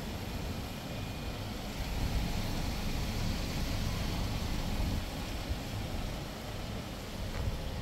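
Wind buffeting the microphone outdoors: a low, unsteady rumble with a faint hiss above it.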